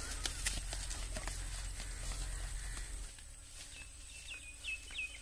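Footsteps and rustling through grass and undergrowth over a low rumble that stops about three seconds in. Then a bird starts calling a rapid series of short, sharp, high notes, each dropping in pitch, coming faster toward the end.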